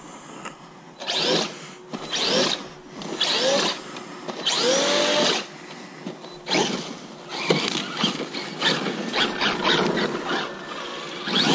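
Traxxas Maxx electric RC monster truck's brushless motor whining in a string of short throttle bursts, roughly one a second, each rising in pitch, with one longer burst near the middle.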